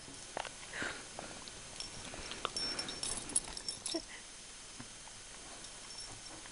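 Soft sounds from a small Lhasapoo dog: scattered light clicks and short noises over the first four seconds, then quieter.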